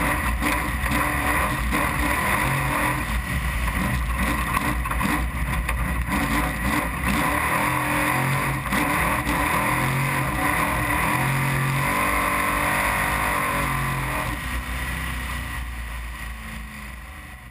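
Trophy truck's race engine running at speed, its revs rising and falling, fading out near the end.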